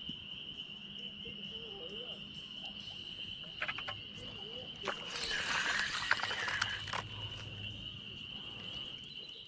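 A steady, high-pitched trilling chorus of calling animals, with a few sharp clicks and a louder stretch of splashing about five seconds in as a hooked fish is brought to the surface.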